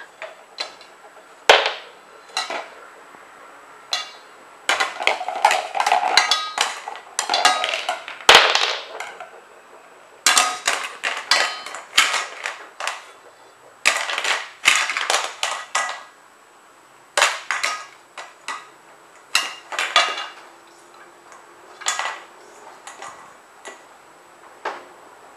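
A spoon clattering and scraping against a stainless steel bowl while toy blocks are scooped. It comes in runs of quick clinks separated by short pauses.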